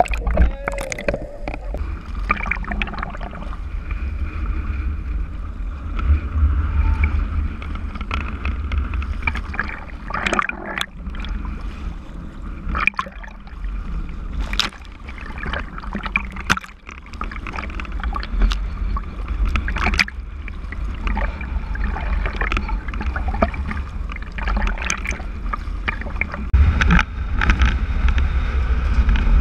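Choppy sea water sloshing and splashing at the surface, heard close up, with many sharp splashes over a steady low rumble.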